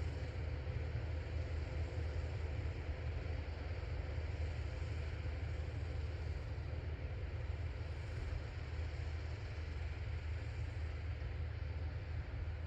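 Farm tractor engine running steadily with a low, even drone.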